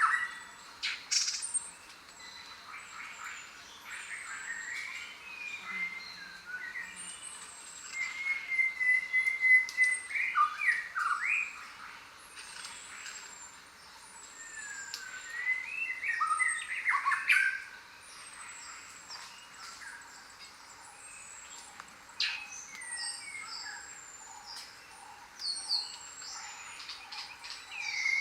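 A chorus of several jungle birds calling: high, thin, down-slurred chirps overlap with squawks and whistled phrases. About eight seconds in, one bird gives a fast run of repeated notes lasting about two seconds.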